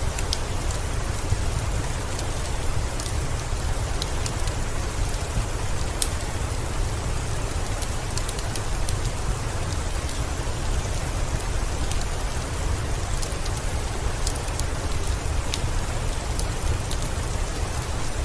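Steady heavy rain with scattered sharp crackles from a wood fire in a fireplace.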